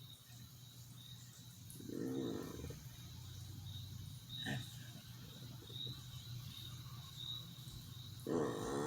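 A sleeping person's throat or voice making snore-like vocal sounds: a short moan about two seconds in, a faint click midway, and a louder, longer wavering moan that starts near the end. A faint steady hum runs underneath.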